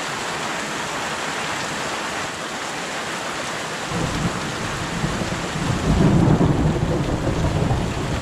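Steady rain falling in a mountain thunderstorm. About halfway through, thunder starts rumbling low underneath it, growing loudest a couple of seconds later.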